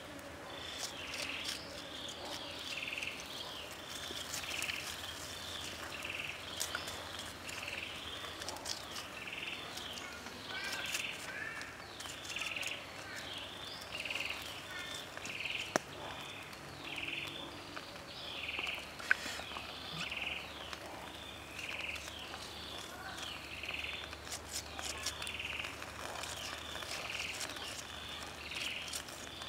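Short high chirping calls from a bird or insect, repeating steadily a little more than once a second, with a few isolated sharp clicks.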